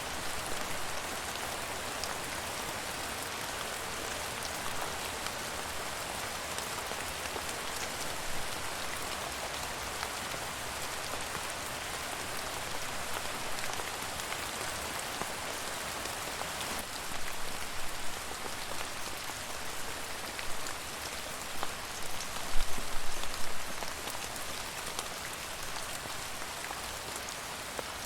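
Steady rain falling, with individual drops pattering on a surface; a spell of louder, heavier drop hits comes about two-thirds of the way in.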